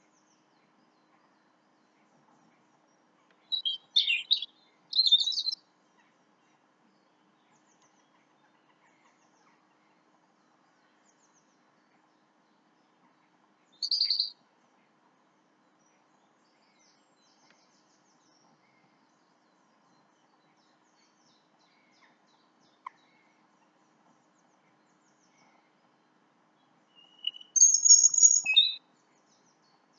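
Wild birds chirping at dawn in short bursts of high chirps: a couple of quick clusters about four seconds in, a single call near the middle, and a longer run of chirps near the end.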